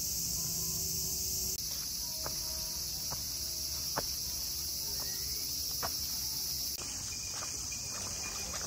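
Steady, high-pitched buzzing chorus of cicadas, whose pitch and level change abruptly about a second and a half in and again near the end. A few faint clicks come in the middle, and light footsteps come near the end.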